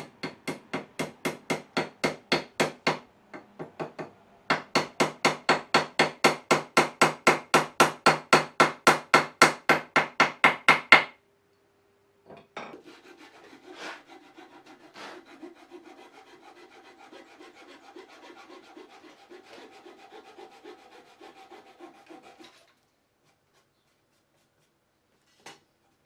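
Hand filing strokes, quick and regular at about four a second, growing louder, with a short break about three seconds in. They stop about eleven seconds in. A quieter, steadier scraping with a faint ringing tone follows and ends about twenty-two seconds in.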